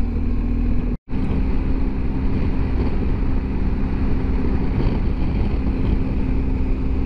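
Motorcycle engine running at a steady cruising speed, an even drone over wind and road rush. The sound cuts out completely for a split second about a second in.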